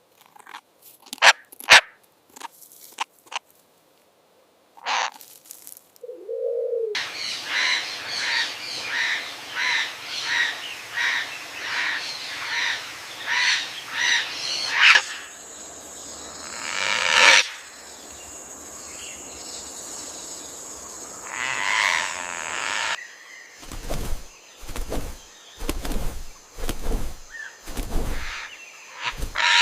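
Parrots calling. After a few scattered clicks comes a run of short, evenly repeated chirping calls, about three every two seconds, then scattered calls and a series of low thumps near the end.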